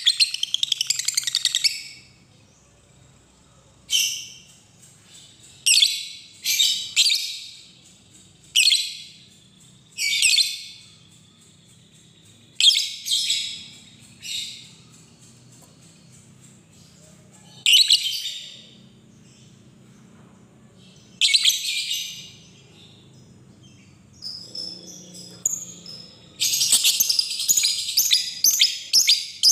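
Fischer's lovebird calling: about a dozen short, high chirping calls, spaced one to a few seconds apart. About three-quarters of the way through they break into a fast run of rapid repeated notes, the long chattering 'ngekek' trill, which keeps going.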